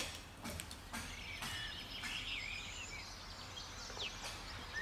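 A few sharp clicks as a plastic water-bottle cap is twisted open. A bird sings from about a second and a half in, over steady outdoor background noise.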